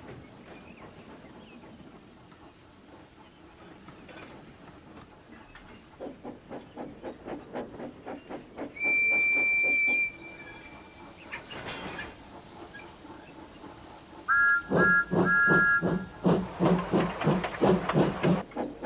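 Steam locomotive chuffing in a steady rhythm, with a short single-note whistle partway through. Near the end it gives a two-note whistle, and the chuffing becomes loud and faster.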